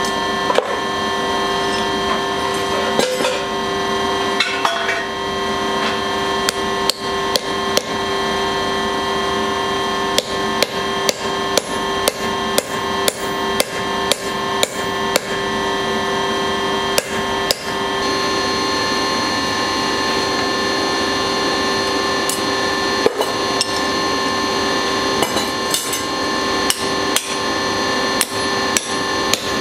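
Hand hammer striking red-hot steel on an anvil, driving a tool held on the bar, in runs of quick blows about two a second with pauses between the runs. A steady hum runs underneath.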